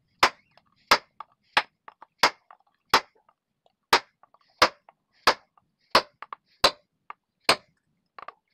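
Hammer striking a steel punch set on a ground-down rivet of the factory upper ball joint on a control arm. About eleven sharp metallic blows come in a steady rhythm, roughly two-thirds of a second apart, driving the rivet out.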